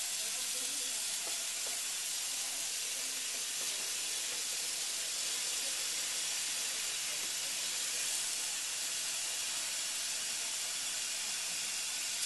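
Steady hiss of running water, unbroken and even in level.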